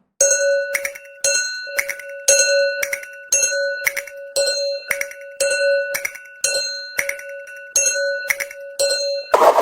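Japanese railroad crossing warning bell ringing in a steady rhythm of about two strikes a second, stopping abruptly near the end.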